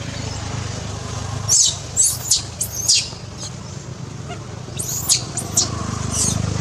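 Newborn macaque infant squealing in short, very high-pitched cries that rise and fall sharply. There are several in quick succession about a second and a half in, then another run from about five seconds in, over a low steady hum.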